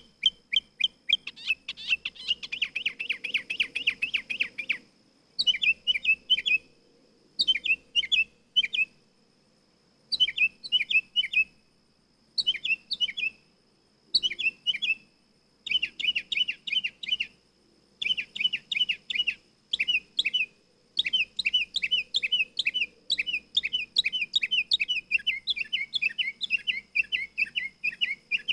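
Mockingbird singing: bouts of rapid, repeated chirping notes, each bout lasting one to three seconds, separated by short pauses.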